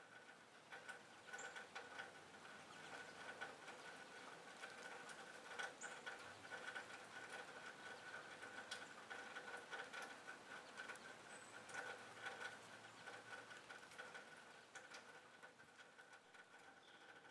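Faint outdoor ambience: a steady low hum with scattered soft ticks and taps, and a few brief high chirps.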